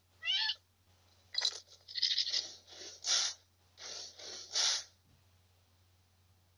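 Dino, the Flintstones' pet dinosaur, making a string of short creature vocal sounds. A wavering falling squeal comes first, then about six short noisy calls, and they stop about five seconds in.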